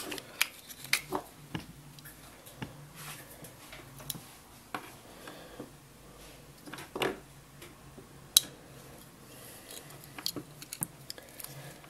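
Scattered clicks and light taps of hands handling the RC truck's wires and plastic plug connectors, with two louder clicks about seven and eight seconds in.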